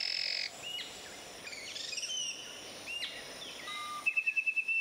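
Rainforest birds calling: a held whistle at the start, scattered short rising chirps, and a rapid even trill near the end, over steady forest background noise.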